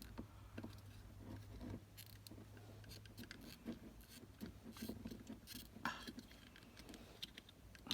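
Faint, scattered clicks and scrapes of hard plastic being worked by hand: a Jeep Wrangler door-lock bezel's release tab being pried up to separate the parts. A low hum is also heard for the first few seconds.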